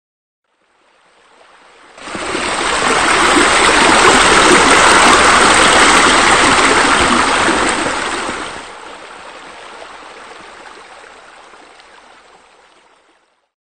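Steady rushing, splashing water of swimming-pool water features such as deck jets. It fades in, swells up sharply about two seconds in and holds loud, then drops suddenly to a softer level near nine seconds and fades away.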